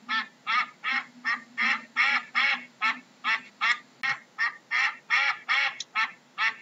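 Duck quacking in a steady, rapid run of short, harsh calls, about three a second.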